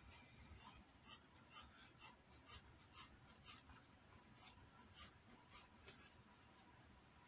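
Faint, crisp snips of scissors cutting through leather, about two a second, trimming the excess seam allowance off a sewn seam. The snipping stops about six seconds in.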